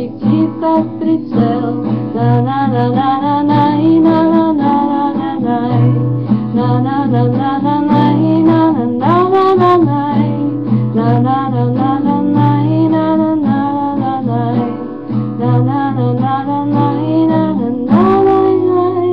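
Strummed guitar with a voice singing a melody over it.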